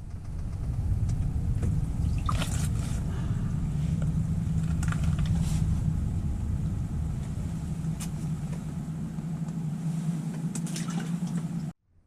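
A motor vehicle engine running steadily with a low rumble and a constant hum. It cuts off suddenly near the end.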